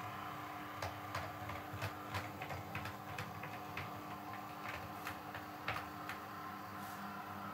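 Model railway locomotive running slowly, its wheels clicking unevenly over rail joints and pointwork, with a steady low hum underneath.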